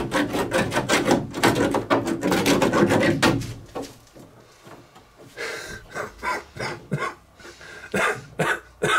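Old silicone caulk being scraped off the edge of a shower wall panel: rapid, loud rubbing and scraping strokes for about three and a half seconds, then a few short scattered sounds.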